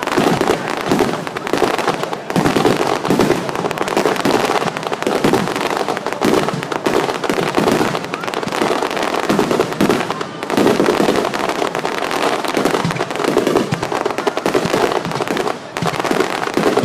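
Fireworks display: a dense, unbroken barrage of overlapping bursts and crackling.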